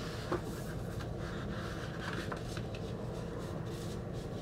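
A cardboard LP jacket and its paper sleeve rustling and sliding as a vinyl record is worked out of it, with one light click about a third of a second in. A steady low hum runs underneath.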